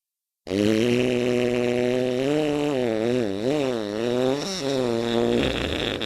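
One long, pitched fart lasting nearly six seconds. It starts suddenly on a steady low note, wavers up and down in pitch through the middle, and then cuts off.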